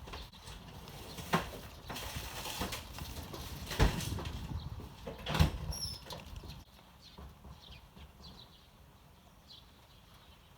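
Eurasian tree sparrows: three sharp taps with some rustling in the first half, then faint, short, high chirps as it grows quieter.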